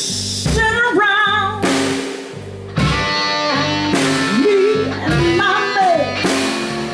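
A live band playing a bluesy instrumental intro: guitar and bass over a drum kit, with a lead line that bends and wavers in pitch.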